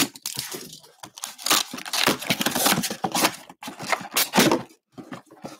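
A cardboard box being torn open by hand: packing tape and cardboard flaps ripping, with scraping and rustling of cardboard in irregular bursts that die away near the end.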